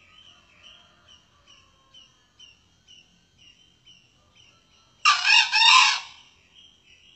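A male junglefowl crows once about five seconds in: one loud, short call of about a second, broken into a few quick pulses. Behind it a faint high chirp repeats about twice a second.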